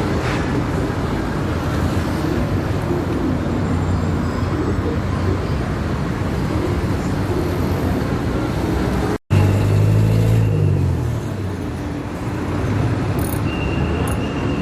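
Steady road traffic noise, cut off sharply twice. A motor vehicle's low engine hum stands out briefly about ten seconds in.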